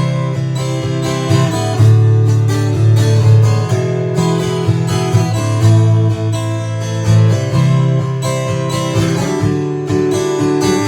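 Acoustic guitar strummed steadily, playing an instrumental break between sung verses.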